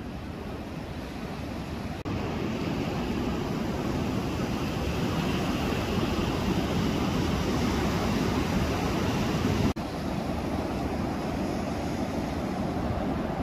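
Storm-swell surf: a steady rush of waves breaking and washing over the shore, with a low wind rumble on the microphone. The level jumps abruptly about two seconds in and again near ten seconds, where the shots cut.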